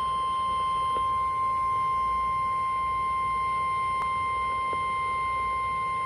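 NOAA Weather Radio 1050 Hz warning alarm tone through a Midland weather radio's speaker: one steady, unbroken tone signalling that a warning is about to be read, here a severe thunderstorm warning.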